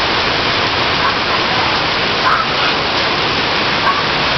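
Heavy rain pouring down in a loud, steady hiss, with a few short faint voices heard through it.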